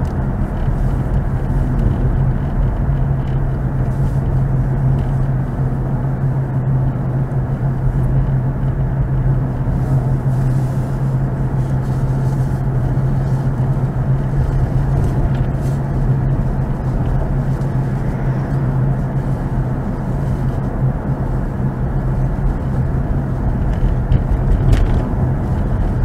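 Steady engine hum and tyre noise of a car being driven, heard inside its cabin, with a constant low drone.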